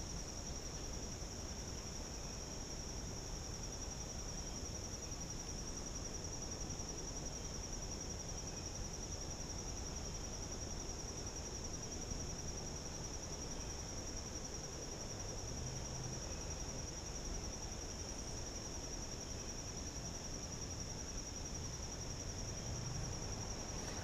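Insects trilling steadily in one unbroken high-pitched note, over a faint low background rumble.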